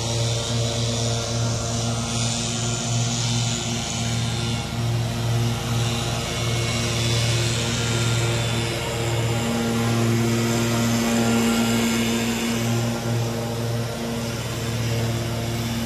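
Small petrol engines running steadily: a backpack leaf blower close by with its rushing air, and a stand-on mower's engine working across the lawn. A second, higher engine note grows stronger for a few seconds past the middle.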